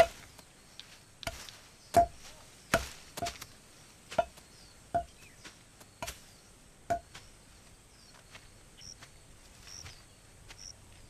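Axe chopping into wood: a run of sharp blows, one about every second, each with a short ringing knock. The blows thin out and grow faint after about seven seconds, with faint bird chirps near the end.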